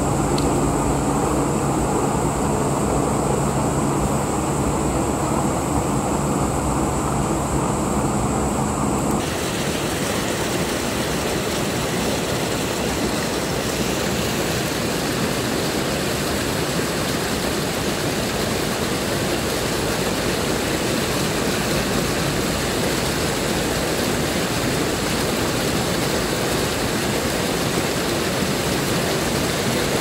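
Shallow river water running over stones, a steady rush. For about the first nine seconds a low steady hum sits beneath it, then the sound changes abruptly to a fuller, even rush.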